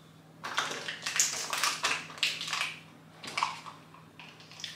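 Plastic sauce sachet crinkling as it is picked up and handled: a run of short rustles through the first three seconds, and one more a little later.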